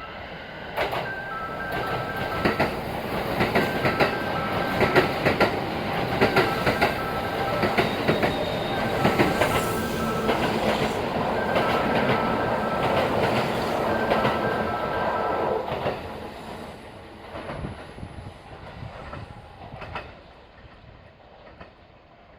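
Kintetsu six-car limited express electric train passing through a station, its wheels clicking over the rail joints; it grows loud about a second in and fades away after about 15 seconds. A repeating two-note electronic signal sounds over the train until it has passed.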